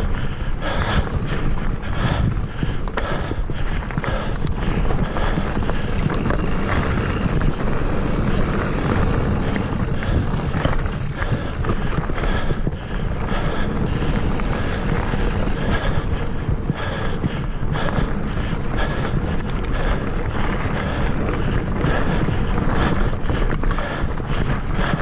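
Mountain bike riding along a dirt singletrack trail: steady tyre rumble and wind buffeting the microphone, with frequent rattles and knocks over bumps. A high hiss comes in twice for a few seconds in the middle.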